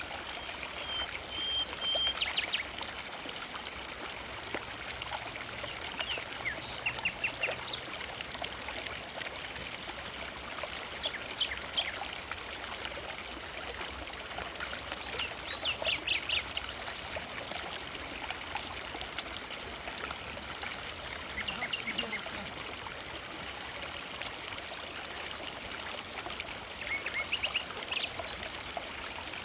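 River water flowing steadily, with birds giving short bursts of quick, high chirps every few seconds over it.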